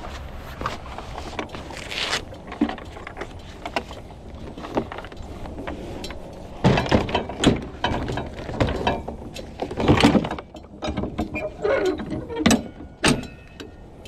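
Power equipment being stowed on a pickup truck bed: a run of knocks, clunks and rattles as a backpack leaf blower and string trimmers are handled and set into their racks. The clatter grows busier in the second half.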